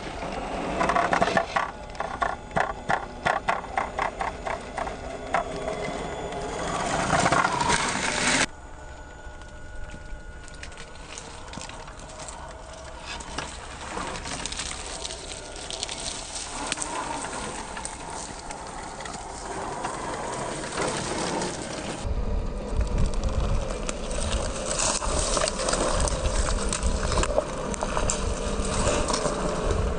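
Vanquish VS4-10 radio-controlled scale crawler working over sand and rock, its small electric motor and gear drive whining with rapid crunching and clicking from the tyres and drivetrain. The sound shifts abruptly about a third of the way in and again about two-thirds in, ending louder with a heavier low rumble.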